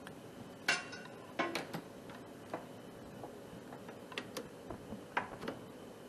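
Irregular clicks and light metallic rattles from wiring and connectors being handled in a sheet-metal air handler cabinet as the relay is hooked up to power. The sharpest click comes just under a second in, with more around a second and a half, four seconds and five seconds.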